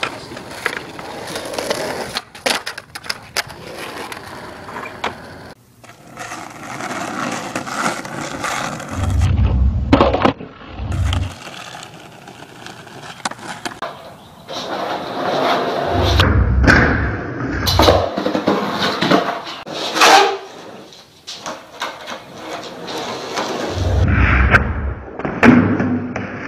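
Skateboard wheels rolling on concrete, broken by sharp clacks and slaps of the board landing and hitting the ground several times through the stretch.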